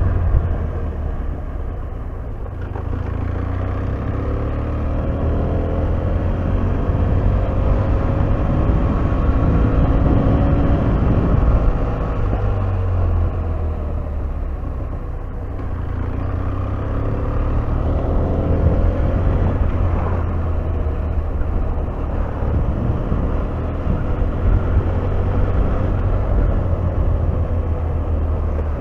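BMW F800R motorcycle's parallel-twin engine running on the road under a heavy low rumble of wind noise; the engine note rises and falls several times as the revs change.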